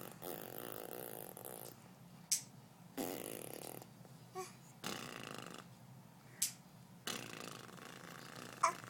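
Fart noises, four of them, each a buzzing, rattling blow lasting from under a second to nearly two seconds, with short sharp high sounds between them.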